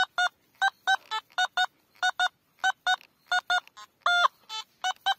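Metal detector sounding a high-pitched target tone: short repeated beeps, many in pairs, as the coil is swept back and forth over the spot, with one longer beep about four seconds in. The sharp, high tone marks a buried metal target that the detectorist thinks may be a good one.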